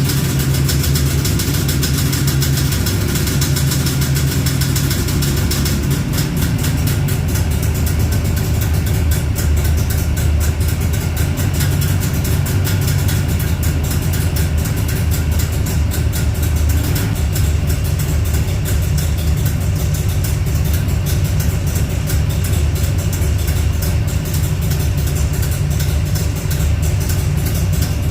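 Jawa 350 TS two-stroke parallel-twin engine running steadily at idle after restoration. Its note shifts slightly about six seconds in.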